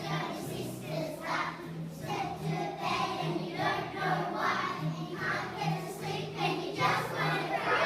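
A class of young children singing a song together as a choir, over musical accompaniment with a steady low pulse.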